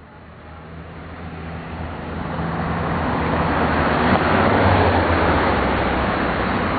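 A motor vehicle's engine running, growing louder over about the first four seconds and then holding steady.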